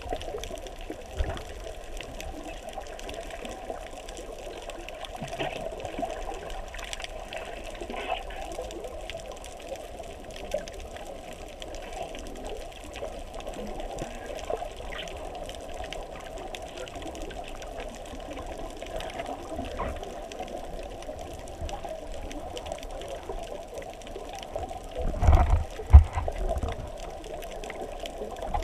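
Muffled underwater noise picked up by a GoPro Hero3+ inside its waterproof housing: a steady dull churning of water, with a few louder low thumps about 25 seconds in.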